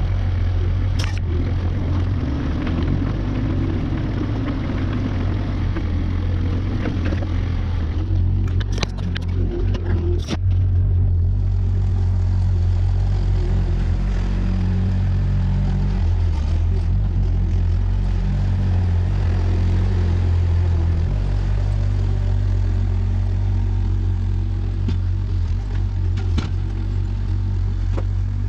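Engine of a compact earthmoving machine, a mini excavator or skid steer, running steadily under work, with a few sharp knocks about a second in, around eight to ten seconds in, and near the end.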